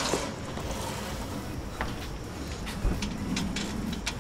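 Wind blowing across the microphone and the loose jib's sailcloth rustling, with a few short sharp clicks.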